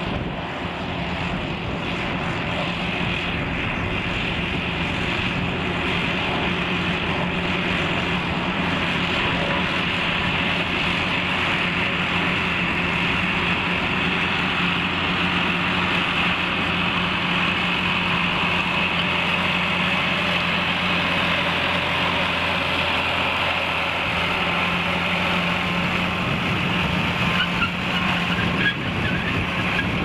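Valtra 8050 tractor's six-cylinder diesel engine running steadily under load while pulling a four-furrow plough, growing a little louder over the first few seconds as the tractor nears.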